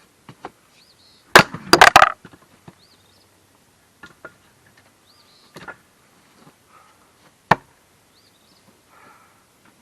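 Axe splitting blocks of dry ash firewood. About one and a half seconds in, a blow lands with a loud crack and a quick run of knocks as the pieces fall apart; a single sharp strike comes near the end, with lighter wood knocks between.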